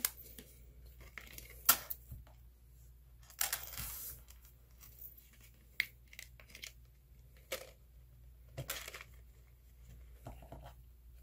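Hands handling a cardstock paper purse and a thin metal chain during hot-glue crafting: scattered light clicks and paper rustles. The longest and loudest rustle comes about three and a half seconds in, and another about eight and a half seconds in.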